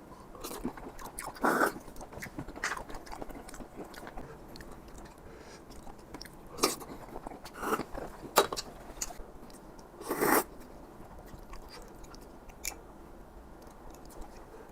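Close-up chewing of boiled apple snail meat, with small wet mouth clicks and a few louder crunches. The flesh is firm and crunchy.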